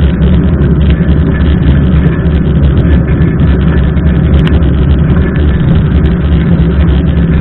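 Loud, steady wind rumble on a handlebar-mounted camera's microphone while riding a mountain bike through heavy rain, with many small taps of raindrops striking the camera.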